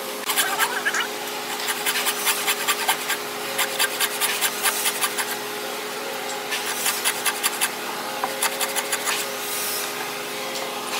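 Thin-bladed hand frame saw cutting into a hardwood plank to saw out a joint: quick rasping strokes in short bursts, with brief pauses between them.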